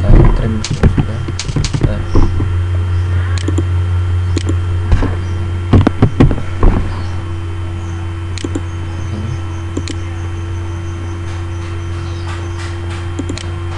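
Irregular sharp clicks of a computer mouse as objects are picked one by one during a trim, with a few heavier knocks in the first half. A steady low electrical hum runs underneath.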